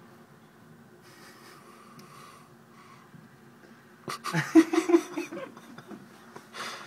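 A person laughing in loud broken bursts, starting about four seconds in, over a faint steady room hum.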